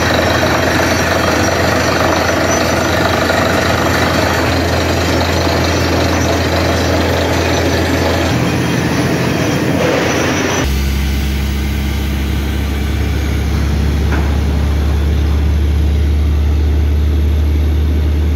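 Borewell drilling rig working with its ELGi PG 1200S-330 diesel air compressor: a loud, dense rush of compressed air blowing rock cuttings out of the bore over the engine rumble. About ten seconds in it changes suddenly to a steadier, lower diesel engine drone with far less hiss.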